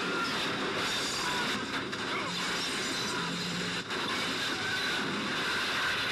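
Loud, continuous road-vehicle traffic noise, a dense rushing hiss with a few short steady high tones over it.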